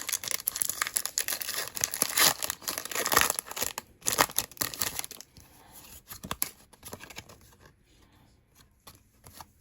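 Foil wrapper of a Pokémon card booster pack being torn open and crinkled, dense and loud for about five seconds, then dropping to faint scattered rustles and ticks.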